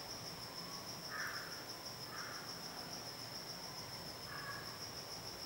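Cricket chirping in a steady, continuous high trill, with a few faint short sounds in the background about one, two and four and a half seconds in.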